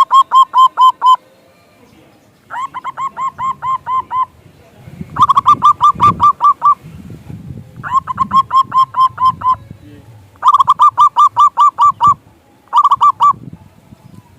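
Zebra dove (perkutut) cooing: phrases of quick, staccato notes repeated at an even pace. Five phrases last about a second and a half each, with a short sixth phrase near the end.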